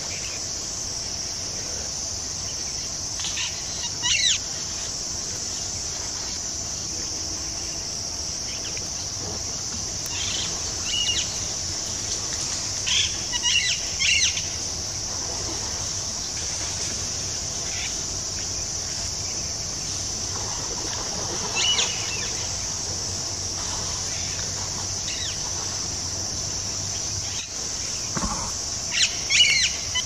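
Forest ambience: a steady high-pitched insect drone throughout, with short bird calls breaking in now and then, a few seconds in, around the middle and near the end.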